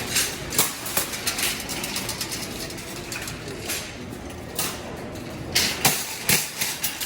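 Metal shopping cart rattling and clanking as it is pushed over a hard floor, with irregular sharp knocks, a cluster of them about a second in and another near the end.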